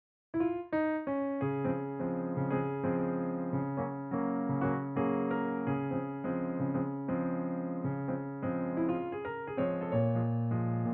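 Background piano music starting abruptly about a third of a second in, a melody of separate notes over held bass notes.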